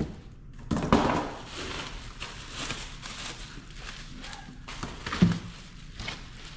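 Rustling and crinkling of wheel packaging being handled and pulled off new wheels, with two knocks: a louder one about a second in and another about five seconds in.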